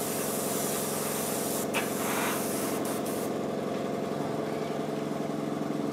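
Airbrush hissing as it sprays paint onto a model aircraft, stopping a little over halfway through. Under it the airbrush compressor runs with a steady hum.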